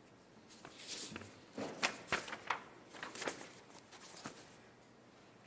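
Sheets of paper rustling and crackling in short bursts as speech notes are handled and turned over.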